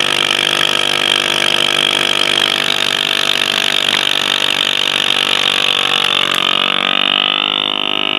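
Countertop vacuum sealer's pump motor running steadily as it draws the air out of a plastic vacuum bag, its note shifting slightly near the end.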